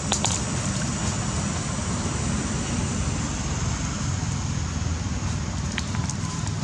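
Wind rumbling on the microphone over a steady high outdoor hiss, with a few faint clicks.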